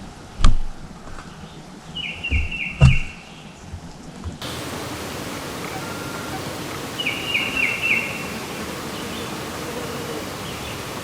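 A small songbird singing a short phrase of four quick down-slurred notes, twice, over a steady background hiss. Two sharp knocks, the loudest sounds, come about half a second in and just under three seconds in.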